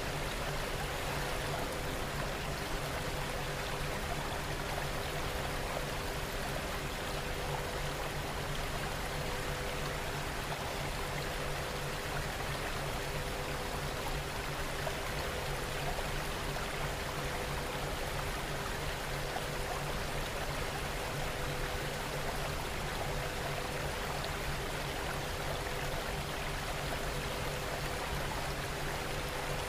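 Rain ambience: a steady, even wash of falling rain, with a few faint steady low tones beneath it.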